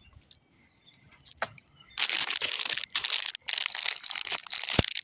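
A few light clicks, then about two seconds in a foil blind-bag wrapper starts crinkling and rustling in quick bursts as it is handled.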